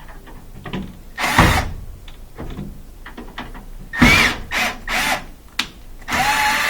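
Cordless power driver backing out a small Torx screw: a few clicks and knocks of handling, a short burst of the motor about four seconds in, then the driver starts running steadily near the end.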